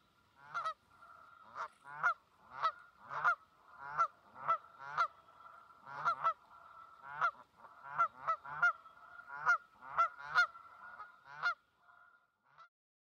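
Canada geese honking, a run of about nineteen honks at roughly one to two a second, which stop near the end.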